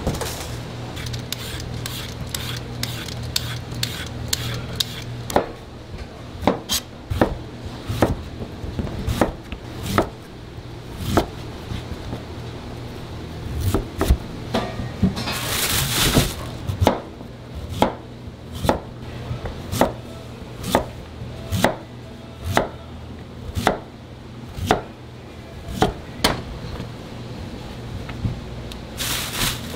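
Knife chopping on a cutting board: sharp strokes, irregular and close together at first, then a steady chop about once a second in the second half, over a low steady hum. A brief hiss sounds about halfway through.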